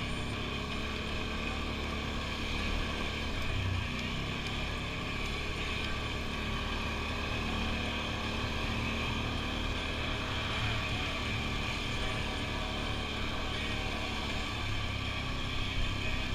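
Off-road vehicle engine running steadily under way on a dirt trail, with slight swells in engine speed, and some wind noise on the microphone.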